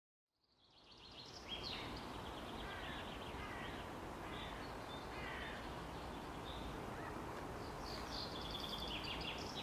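Outdoor ambience fading up from silence: a steady background noise bed with songbirds chirping and trilling in quick runs of high notes throughout.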